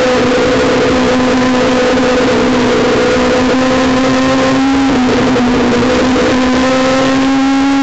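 Honda S2000's four-cylinder engine running hard at high revs, around 7,500 rpm, heard from inside the cabin. Its pitch climbs slowly, with a brief small dip about five seconds in.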